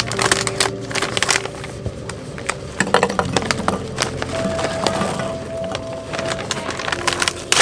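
Plastic snack bag crinkling as cheese ball snacks are poured into a bowl, a dense run of small sharp crackles.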